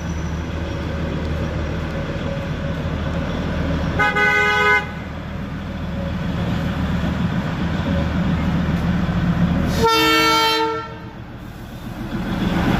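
NDM6 narrow-gauge diesel locomotive of the Darjeeling toy train approaching with its engine running steadily. A horn sounds for under a second about four seconds in, and again, louder and lower, about ten seconds in. Near the end the rolling noise of the train grows louder as it draws alongside.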